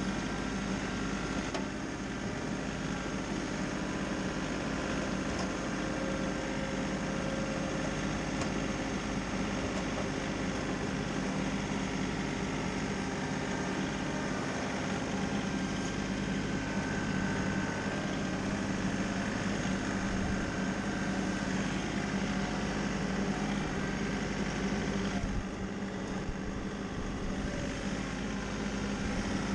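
Engine running at a steady speed, with a constant hum that dips slightly about 25 seconds in.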